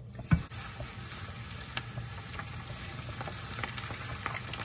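Cornstarch-coated squid strips deep-frying in oil at about 180 °C in a saucepan: a steady bubbling sizzle with scattered crackles. A single sharp knock comes about a third of a second in and is the loudest sound.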